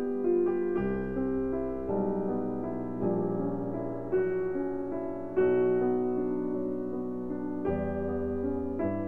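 Background piano music: a slow, gentle melody over sustained notes, with a new note or chord about every second.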